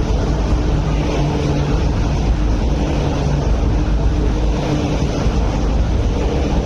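Electric MTR train running past along the platform: a loud, steady running noise of wheels and motors, heaviest in the low end, with a faint steady hum through it.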